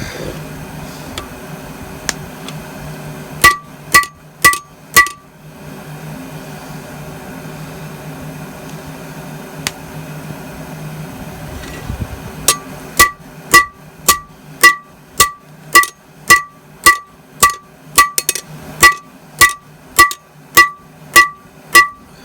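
Hammer blows on a railroad-track anvil, each strike ringing. Four quick blows come a few seconds in, then after a pause a steady run of about two blows a second.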